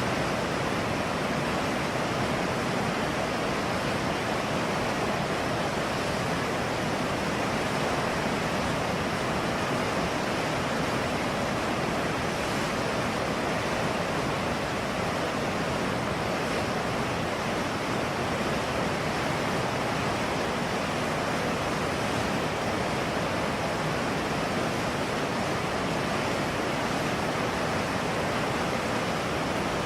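Rushing river water: a steady, unbroken roar of flowing water with no changes.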